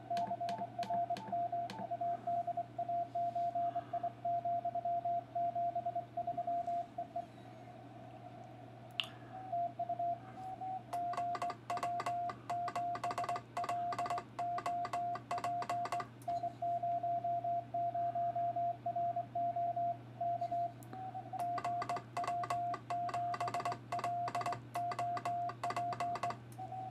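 Morse code (CW) as a single mid-pitched tone keyed on and off, sent by hand on a Kent key over a steady low hum. In two stretches, from about 11 to 16 seconds and from 21 to 26 seconds, the key's contacts click sharply along with the tone; a short pause comes around 7 to 9 seconds.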